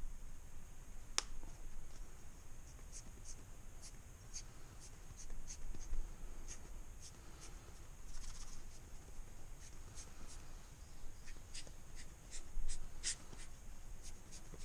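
Balancing beads clicking and ticking irregularly as they are pumped through a hose into a motorcycle tyre's valve stem with a turkey baster, a few sharper clicks standing out near the end.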